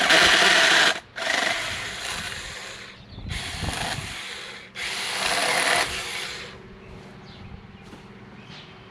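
Battery-powered chainsaw cutting into a tree limb in four bursts of one to two seconds each, stopping about six and a half seconds in.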